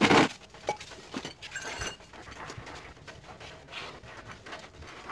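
Water splashing and hands scrubbing a brake drum in soapy water, with a loud splash right at the start followed by irregular swishing and scrubbing.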